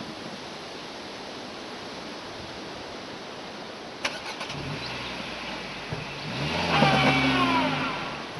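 A Duster SUV's engine is started about four seconds in, with a brief click of the starter, and settles to a low idle. It then revs up for a couple of seconds near the end as the car, stuck in deep sand, tries to pull free.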